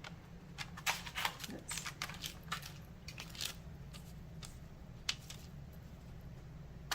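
Scattered light clicks and rustles from handling food and utensils while preparing a dish, over a low steady hum.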